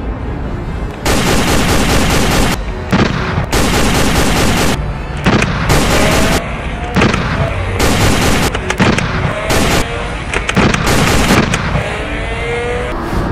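Dubbed-in automatic gunfire sound effect, fired in about five bursts of a second or more each, with single sharp shots between them.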